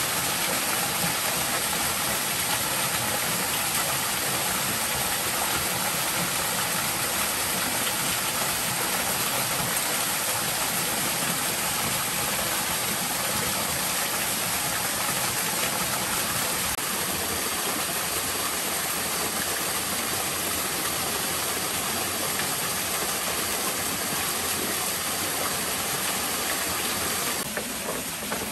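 Steady rushing hiss of a small waterfall pouring onto rocks, even and unbroken, becoming a little quieter shortly before the end.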